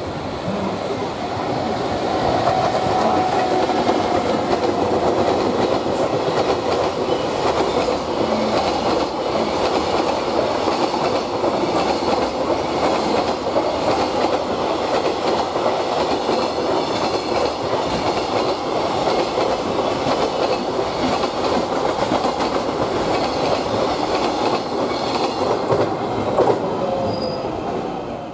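A freight train of container wagons, hauled by an EF65 electric locomotive, passing close by: a steady loud rumble and clatter of steel wheels on the rails as the long train goes through.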